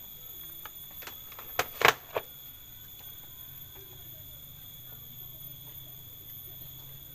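Three sharp clicks close together about two seconds in, as analog multimeter probes are handled at a CRT TV's speaker terminals. After that only a faint steady hum: the second speaker gives no click under the ohmmeter test, the sign of a dead speaker.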